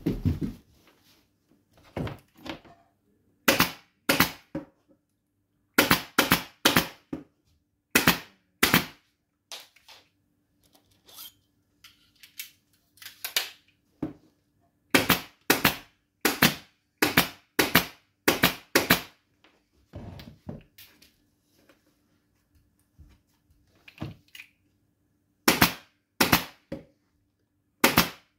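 Pneumatic upholstery staple gun firing staples into a wooden chair seat frame to fix the foam and cover: sharp clacks, often two to four in quick succession, with pauses of a second or more between runs.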